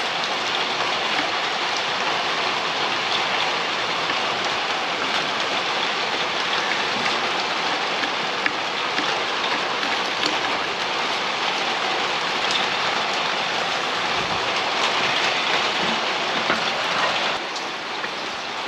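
Steady, even hiss of noise, dropping a little in level near the end.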